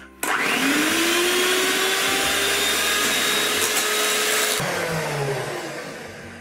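Electric hand mixer switched on, its motor whine rising as it spins up, then running steadily with its beaters whisking a thick cream filling in a stainless steel bowl. Switched off about four and a half seconds in, the whine falling away as the motor winds down.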